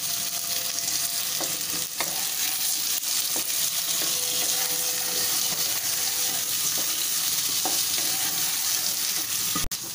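Cubed potato, pumpkin, carrot and beans sizzling steadily in hot oil in a nonstick kadai while being stirred and tossed, with occasional light knocks.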